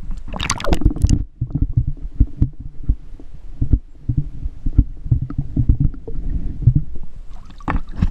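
Water splashing as an action camera goes into a river, then the muffled sound of the camera held underwater: dull low knocks and rumbles of water moving against the housing as a bass is held and released. Another splash near the end as the camera comes back up.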